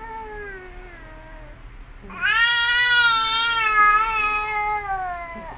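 A small child crying: two long wailing cries, a shorter one at the start and a louder one of about three seconds that falls in pitch at its end.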